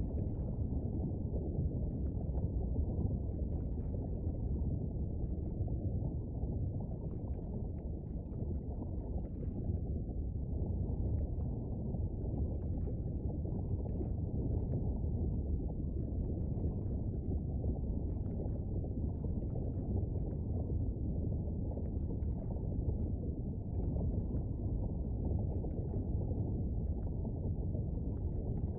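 Steady deep rumble with faint, scattered bubbling pops: a lava-and-volcano rumble sound effect.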